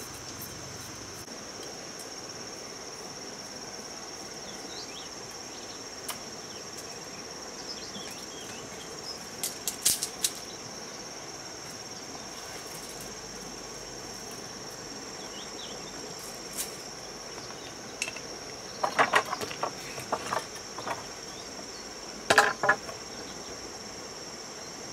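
Steady, high-pitched chorus of insects such as crickets, over a faint even hiss. Several sharp knocks and clatters break in, a short cluster about ten seconds in and louder ones between about 19 and 23 seconds.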